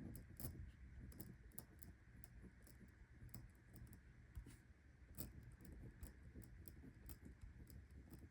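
Faint pen writing on paper in a planner: many small irregular clicks and taps of the pen tip, over a low background hum.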